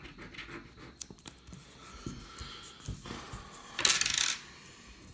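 A coin scratching the silver coating off a paper scratchcard in quick short strokes. About four seconds in comes a louder, half-second swipe as a hand brushes the scratchings off the card.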